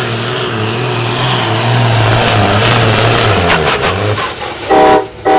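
Diesel farm tractor engine running hard under load while pulling the sled, its steady drone falling away about four seconds in. Near the end a loud horn sounds twice, the second blast longer.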